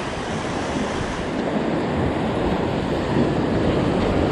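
Sea surf washing and breaking against the rocks and concrete blocks of a jetty, a steady noisy wash that grows slightly louder, with wind buffeting the microphone.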